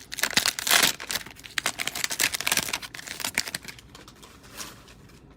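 Cellophane wrapper of a trading-card cello pack crinkling as it is torn open and handled: dense crisp crackling, loudest in the first second, thinning out near the end.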